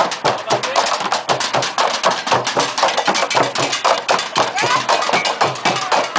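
Street percussion band beating sticks on plastic jugs and plastic barrels in a fast, steady rhythm of sharp, hollow hits, with voices calling out over the drumming.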